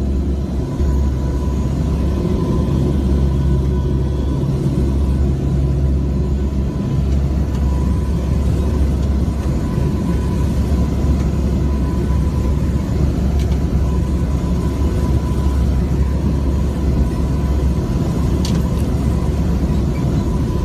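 Turboprop engines and propellers droning steadily, heard inside the aircraft cabin: a deep hum with a thin steady tone above it.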